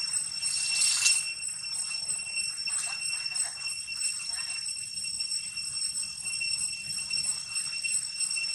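Steady high-pitched ringing of insects in the trees, several even tones sounding at once without a break. A brief, louder hiss rises over it about a second in.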